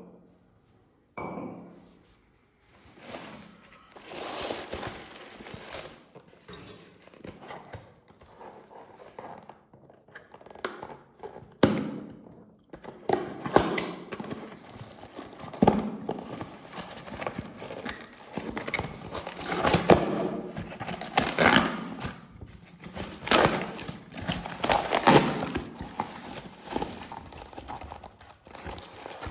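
Packaging being handled and unwrapped by hand: rustling and crinkling in repeated spells, with several sharp knocks of objects being picked up or set down.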